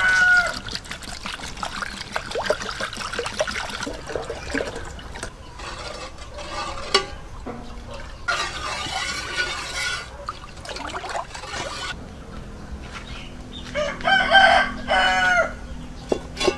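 Rooster crowing repeatedly, the loudest crow about fourteen seconds in. At the start, water splashes as it is poured from bottles into a metal pot.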